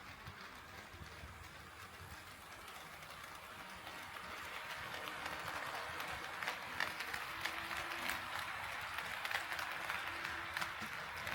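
HO scale model train running on KATO Unitrack, growing louder from about four seconds in, with a stream of light rapid clicks from the wheels on the rails.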